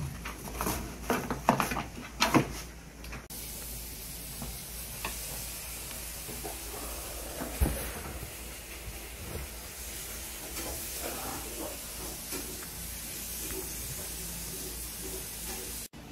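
Husky in labour stirring on torn cardboard bedding in a wire crate: a quick run of scratchy rustles, about three a second, for roughly three seconds. Then a steady hiss with a few faint knocks.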